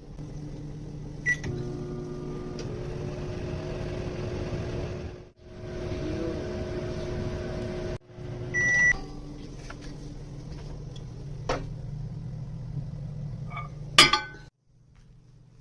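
Microwave oven running with its steady low hum, broken by electronic beeps twice. A sharp clatter near the end, after which the hum stops.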